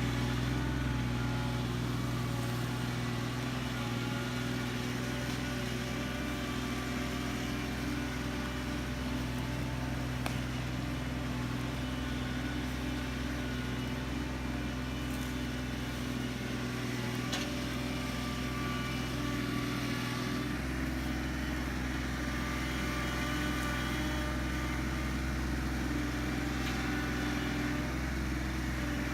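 An engine running steadily at a constant speed, with a low, even hum and no revving.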